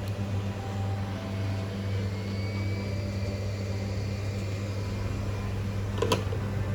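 A steady low hum, with faint thin high tones and one sharp click about six seconds in.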